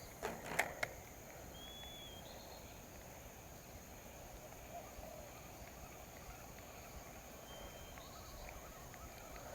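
Quiet outdoor ambience: a steady high insect drone, with three short high whistled notes spread through it. Two or three sharp clicks come in the first second.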